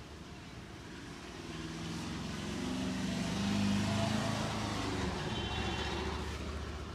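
A motor vehicle passing on the road: its engine grows louder to a peak about halfway through, then fades away.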